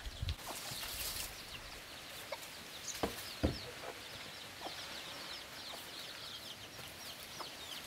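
Chickens clucking, with two sharp knocks about three seconds in and a quick run of short high chirps through the second half.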